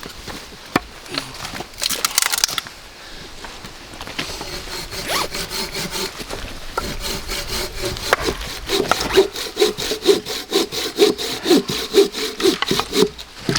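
Hand saw cutting through firewood. Slow, uneven strokes at first, then from about halfway a steady back-and-forth rhythm of two to three strokes a second.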